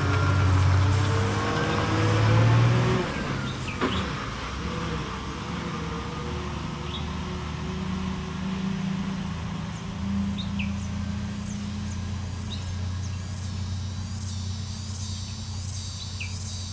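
Heavily loaded lorry's diesel engine pulling uphill under load as it climbs away from the hairpin bend. It is loud for the first three seconds, then drops to a steady, more distant drone, with a sharp knock about four seconds in. A few bird chirps sound, and an insect's pulsing call starts up near the end.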